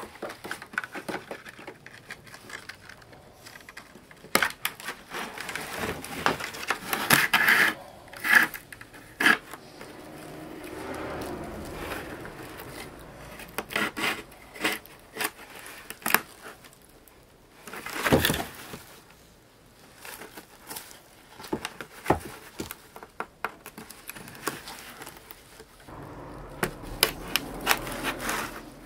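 Dry grass stalks and thin binding strips rustling, crackling and scraping as they are pulled through and wrapped around the rim of a woven ajiro winnowing basket, in irregular bursts with scattered clicks. A louder rasp comes about two-thirds of the way through.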